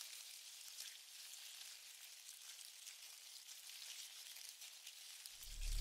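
Faint crackling hiss of background noise, with no distinct event. Low music begins fading in just before the end.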